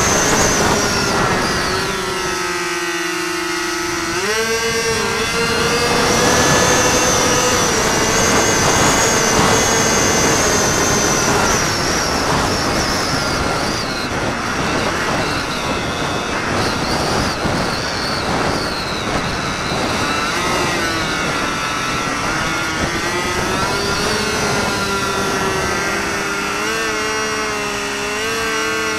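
Electric motor and propeller of a Delta Ray RC plane whining in flight, its pitch shifting with the throttle: it drops about two seconds in and rises sharply about four seconds in. Under it runs a steady rush of wind across the onboard camera's microphone.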